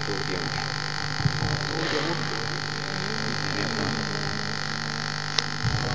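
Steady electrical hum and hiss with faint, indistinct voices murmuring in a hall. A single sharp click about five and a half seconds in.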